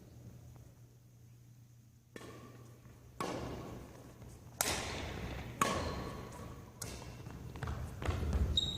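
Badminton rally: rackets striking the shuttlecock five times, about a second apart, each hit echoing in the hall. The first two seconds are nearly quiet except for a steady low hum.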